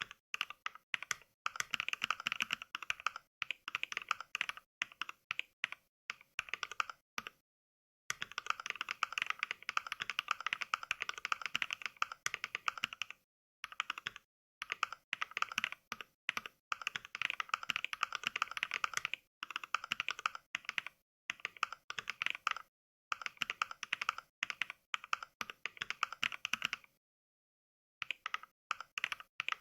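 Rapid mechanical keyboard keystrokes from the Mechvibes NK Cream sound pack, a sampled NovelKeys Cream linear-switch keyboard, clicking with each key press during fast touch typing. The typing comes in runs with a few brief pauses, the longest about a second near the end, where the sound drops to dead silence.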